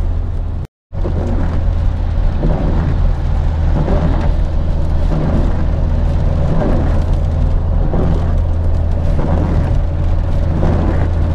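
Car cabin noise while driving on a wet road in rain: a steady low rumble of engine and tyres with a hiss of spray and rain. The sound cuts out completely for a moment under a second in.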